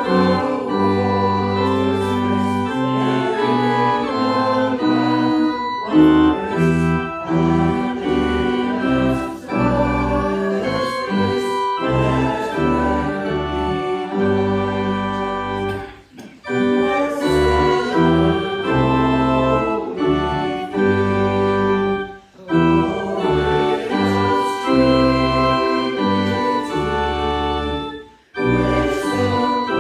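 Organ playing a hymn tune in full sustained chords that change every second or so, with brief breaks between the lines of the hymn.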